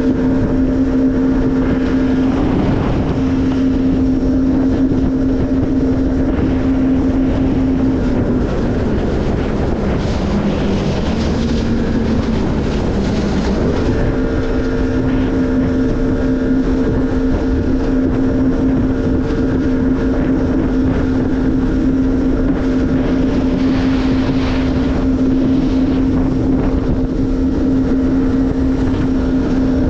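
Jet ski engine running steadily at speed over a constant rush of wind and water. About a third of the way in, its pitch drops and wavers for several seconds, then climbs back to the same steady note.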